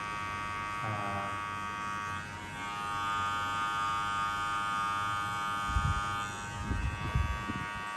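Cordless electric hair clipper running with a steady buzz as its blade cuts short hair above the ear. A few low thumps come near the end.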